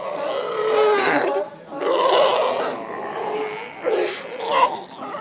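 Seal calling close up: two long calls in the first three seconds, the first with a clear pitch and the second rough and hoarse, then two short calls near the end.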